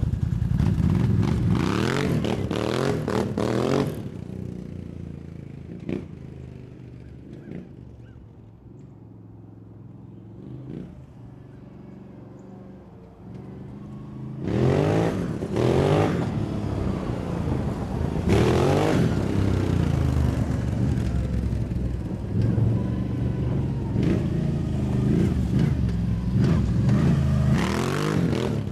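Renegade ATV engine revving and accelerating through rising pitch sweeps as it pulls away, fading to a distant hum after about four seconds. It grows loud again about halfway through, with repeated revs as it comes back.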